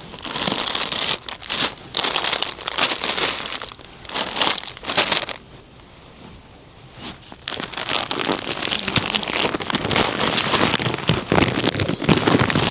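Crinkling and rustling in irregular bursts, with a quieter pause about six seconds in.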